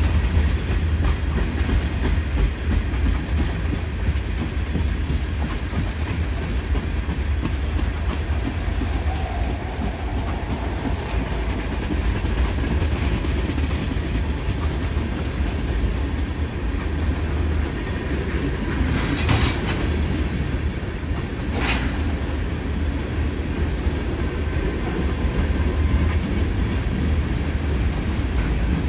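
Freight train of tank cars rolling past, a steady low rumble of steel wheels on the rails. Two sharp knocks come about two-thirds of the way through.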